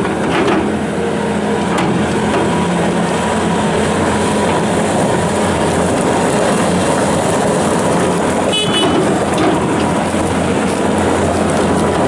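Bobcat S650 skid steer loader's 74 hp turbo diesel engine running steadily as the machine drives and turns on gravel. A brief high chirp sounds once about two-thirds of the way in.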